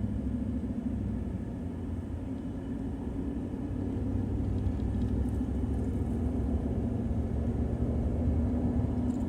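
A motor vehicle's engine running steadily: a low rumble with a humming note, slowly growing a little louder.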